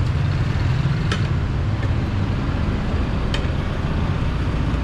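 Steady low rumble of road traffic or a moving vehicle, with two short clicks, about a second and about three and a half seconds in.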